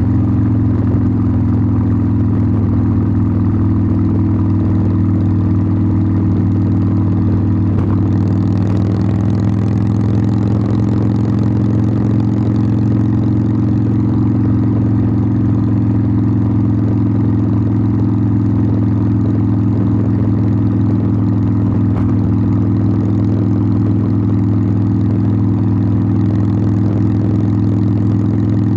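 Harley-Davidson Sportster 1200's air-cooled V-twin engine heard through its exhaust, running steadily at an unchanging engine speed.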